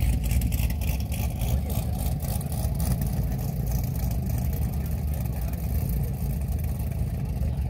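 Corvette V8 running at low revs with a steady, deep exhaust note as the car creeps forward.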